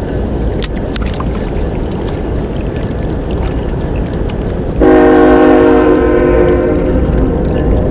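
Steady rush of water from the spillway's tailwater. About five seconds in, a loud horn sounds one held blast of several tones at once for about two seconds, then fades.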